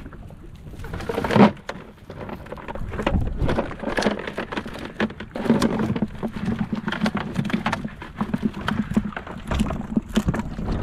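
Irregular pattering and splashing of water and live mullet flapping as a cast net is emptied into a plastic bucket, with one louder splash about one and a half seconds in. A low steady hum joins about halfway through.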